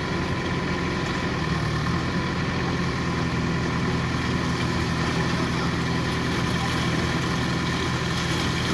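JCB 3DX backhoe loader's diesel engine running steadily while its rear backhoe arm works, a low, even engine drone.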